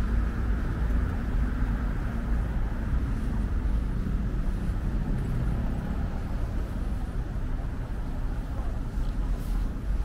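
Steady city road traffic: a low rumble of passing cars and buses with tyre hiss. One vehicle is louder over the first few seconds, then fades.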